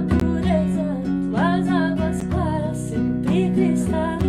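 Nylon-string acoustic guitar strummed in a steady rhythm, with voices singing a flowing melody over it and a hand drum beating underneath.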